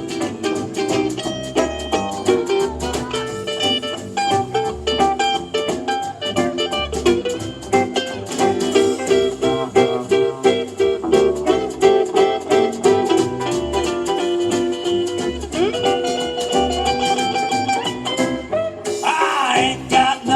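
A live acoustic Western string band playing an instrumental break in a country-blues song, with fast picked and strummed strings over held notes.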